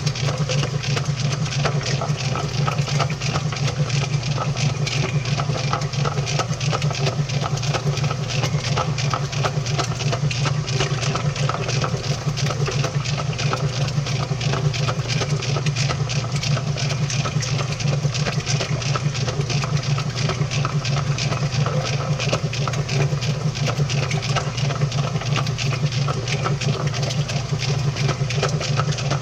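Washing machine running with a GoPro Hero 6 tumbling inside its drum: a steady low motor hum under constant, dense clicking and rattling.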